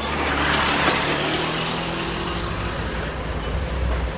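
A motor vehicle going by on a street, loudest about a second in, over a steady low engine hum.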